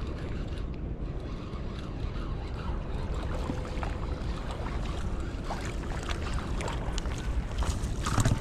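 Outdoor wind buffeting the microphone: a steady low rumbling noise, with a few faint clicks and a short knock near the end.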